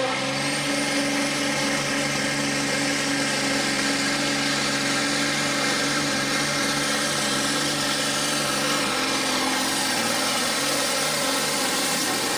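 Turbocharged diesel engine of a John Deere Pro Farm pulling tractor running hard and steady under full load as it drags the weight sled. A faint high whine rises over the first couple of seconds.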